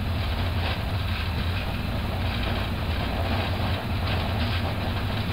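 Inside the cockpit of an Airbus A350-1000 on its takeoff roll at takeoff thrust, accelerating past 100 knots: a steady low rumble from the Rolls-Royce Trent XWB engines and the wheels rolling fast down the runway, with faint repeated knocks over it.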